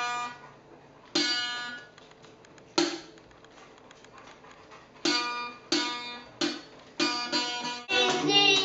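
A child's small acoustic guitar strummed one chord at a time, each chord ringing out and fading. The strums come a second or two apart at first and quicker near the end.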